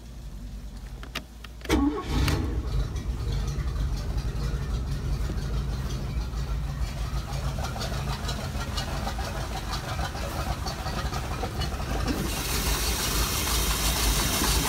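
MerCruiser 4.3LX V6 Alpha One sterndrive engine starting: a short crank and it catches about two seconds in, then settles into a steady idle. Near the end the idle sounds louder and brighter.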